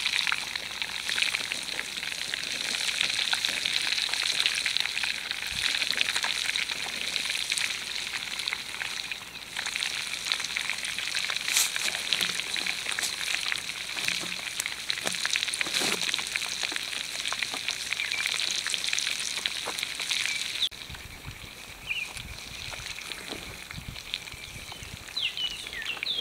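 Fish frying in about half an inch of oil and butter in a cast-iron skillet over a campfire: a steady, dense crackling sizzle. It turns quieter about twenty seconds in.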